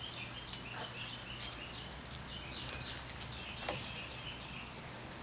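Small birds chirping, a run of short high notes repeated over and over, with a couple of soft clicks from a cat biting at a bamboo leaf.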